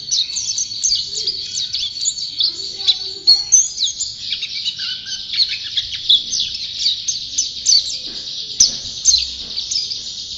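White-eye (pleci) singing without pause: a rapid, high-pitched run of chirps and trills, with a single sharp click near the end.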